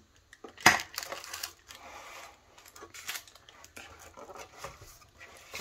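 Cardboard packaging and plastic wrap being handled as a camera is lifted out of its box: one sharp knock a little under a second in, then soft rustling and light clicks.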